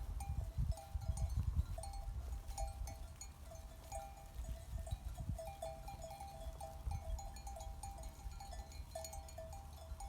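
Bells on a flock of sheep clinking continuously in many short overlapping notes as the animals move, over a low rumble of wind or handling on the microphone.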